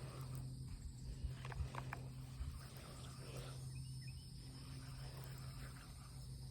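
Faint outdoor background: a steady low hum, thin high insect chirring, and a few light clicks.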